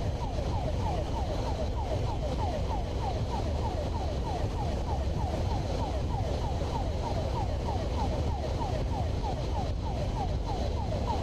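Police motorcycle siren in quick falling sweeps, about three a second, over a steady rumble of wind on the helmet microphone.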